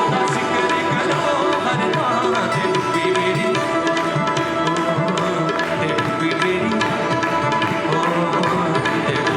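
Live worship band playing an instrumental passage: sustained keyboard-like chords over a quick, steady hand-drum beat.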